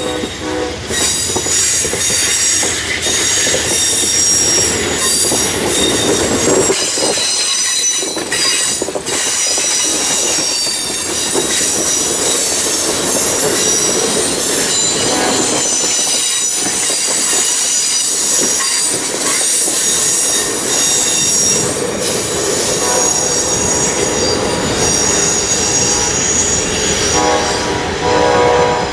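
Amtrak passenger train's cars rolling past at close range: the wheels and rails give a continuous rumble under a high-pitched steady squeal from the wheels. A steady pitched tone comes in near the end as the last car goes by.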